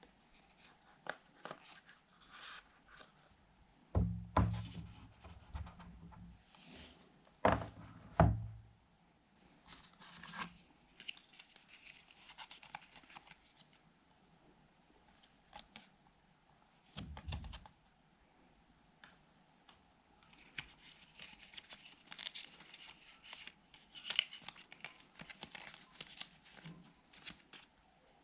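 Packaging being handled during a phone unboxing: paper and plastic rustling and tearing, with light clicks and a few heavier bumps, the loudest about 4 and 8 seconds in.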